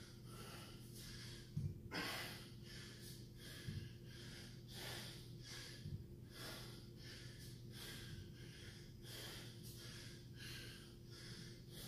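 A man breathing hard and fast during dumbbell snatches, short heavy breaths following one another in quick rhythm. A few dull thuds come between them, the loudest about two seconds in along with a sharper gasp.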